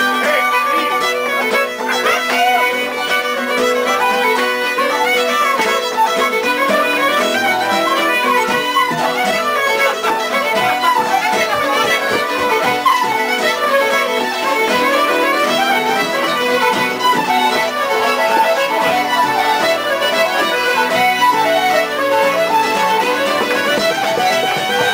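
Irish traditional session music: a fiddle leading a tune with guitar accompaniment, playing on without a break.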